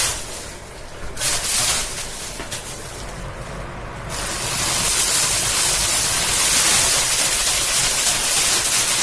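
Running Amazon Basics box fan with a plastic grocery bag caught in its blades. It gives two short bursts of plastic rustling, then from about four seconds in a loud, steady rushing flutter as the blades shred the bag.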